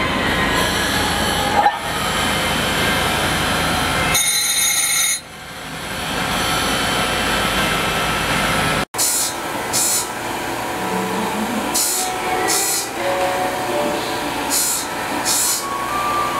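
Grinding wheel of a CNC circular-knife grinding machine running: a loud, steady whirring grind with a brief high whine about four seconds in. It cuts off sharply about nine seconds in. After that comes a thinner machine sound with short hissing bursts in pairs every couple of seconds.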